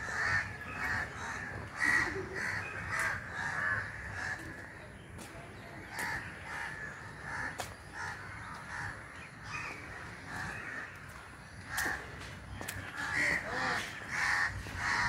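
Birds calling over and over, many short calls in a row, with a few faint clicks.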